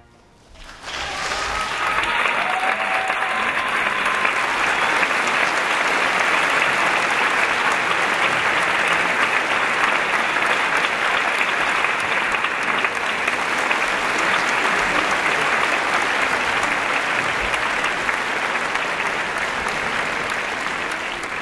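Theatre audience applauding, breaking out about a second in and holding steady and dense, easing off slightly near the end.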